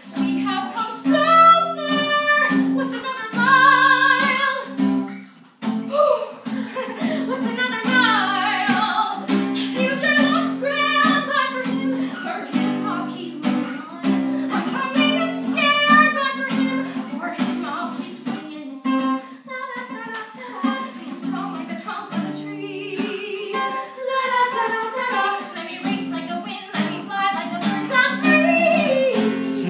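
A woman singing a musical-theatre song over guitar accompaniment.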